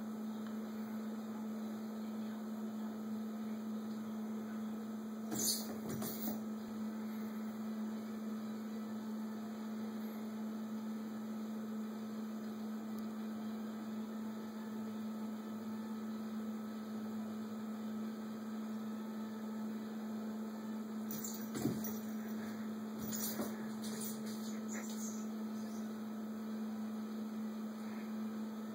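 A steady low hum, with a few brief soft taps about five seconds in and a cluster of them a little past twenty seconds.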